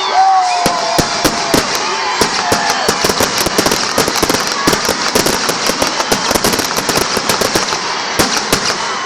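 Fireworks going off in a dense barrage: rapid crackling and popping reports, many a second, without a break.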